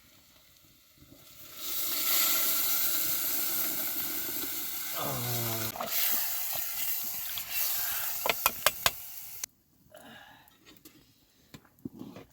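Food sizzling loudly in hot oil in a pan, starting about two seconds in and cutting off suddenly near the end, with a few sharp clicks shortly before it stops.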